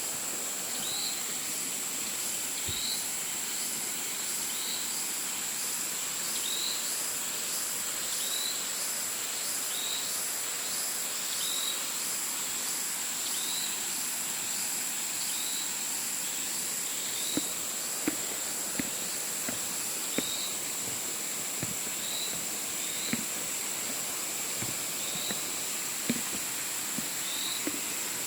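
Insects droning steadily at a high pitch, with a short chirp repeating about once a second over a steady hiss. A few light clicks and taps are scattered through the second half.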